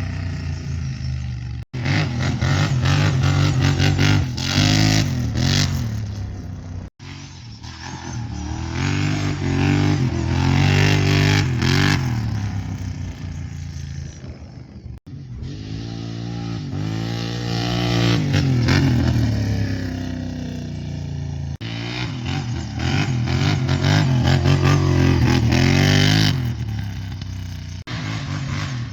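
Kawasaki Brute Force 750 ATV's V-twin engine through a full Muzzy exhaust, revving up and easing off again and again, the pitch rising and falling. The sound breaks off sharply three or four times where clips are joined.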